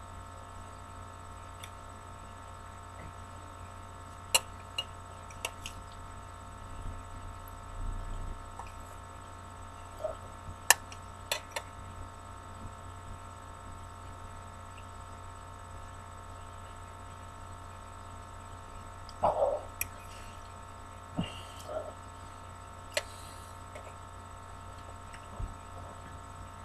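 Steady electrical mains hum, with scattered sharp clicks and taps of a utensil against a bowl of mac and cheese.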